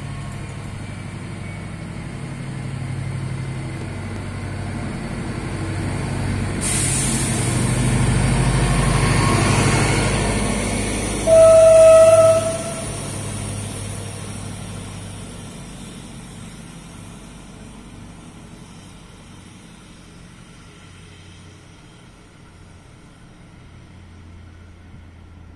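Diesel railcar passing at close range: its engine drone and wheel noise build as it comes by, with one horn blast of about a second and a half near the middle, then fade steadily as it pulls away.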